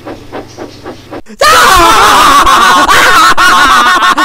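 Steam-engine chuffing at about four puffs a second cuts off abruptly just over a second in. A loud, sustained outburst of several high, wavering voices follows.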